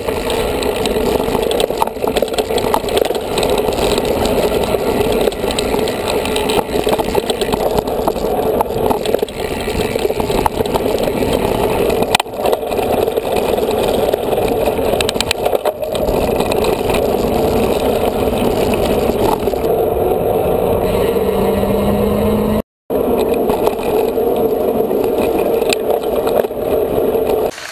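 Mountain bike being ridden over a dirt trail, heard through a bike- or helmet-mounted camera: a steady loud rush of wind noise and rattling from the bike. The sound cuts out for a moment a little over three-quarters in.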